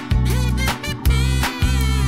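Upbeat background music with a steady beat: a repeating bass line, drums and a pitched melody line.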